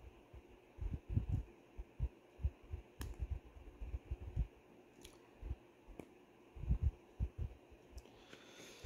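Hands fumbling with small parts on a workbench while working a rubber bushing back onto a power door lock actuator bracket: irregular low thumps with a few light clicks.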